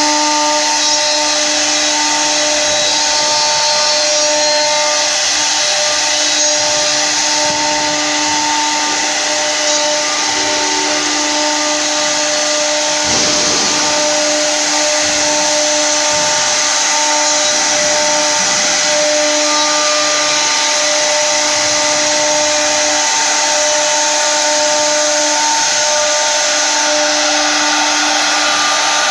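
Four router spindles of a multi-head 4-axis rotary CNC router carving turning wooden blanks: a loud, steady high whine over the hiss of wood being cut.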